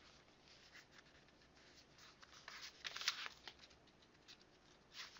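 Faint rustling and scratching handling noises, in short scattered strokes with a louder rustle about three seconds in.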